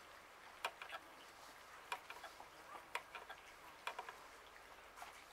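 Several cats eating bread and cheese from a tray: faint, irregular chewing clicks and mouth smacks, roughly one a second.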